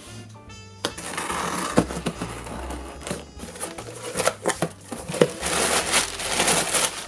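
Cardboard shipping box being opened by hand: packing tape torn and flaps pulled back with knocks and scrapes, then tissue paper rustling and crinkling inside.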